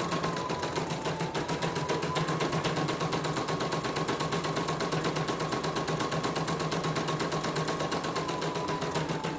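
CNY portable embroidery machine stitching a test design, its needle bar running in a rapid, even rhythm over a steady motor whine that sags briefly a couple of times. This is a test run after repair, with the thread running without breaking.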